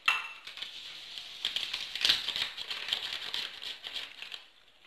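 A bare hand working melted butter, icing sugar and vanilla together in a clay bowl, creaming them by hand. Dense small clicking and crackling starts at once and fades out near the end.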